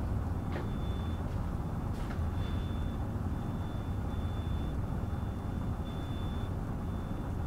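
Steady low room rumble, with a faint thin high squeak that comes and goes several times as a marker is written across a whiteboard.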